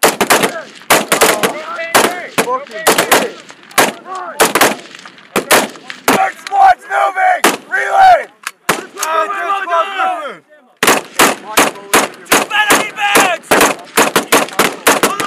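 Rapid, irregular rifle fire from several shooters at once. The shots come close together throughout, with a brief lull about ten seconds in.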